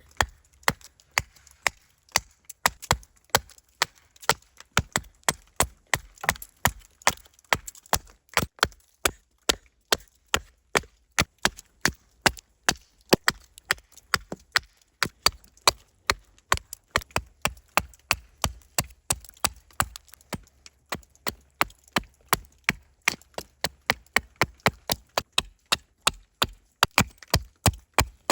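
Blade chopping into a wooden spoon blank in a long, steady run of sharp strokes, about three a second.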